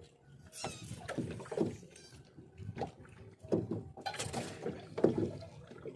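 Water splashing and sloshing against a small fishing boat in irregular bursts, about one every second or so.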